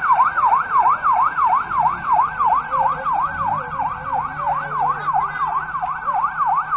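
Police vehicle siren on a fast yelp, its pitch swooping up and down about three times a second.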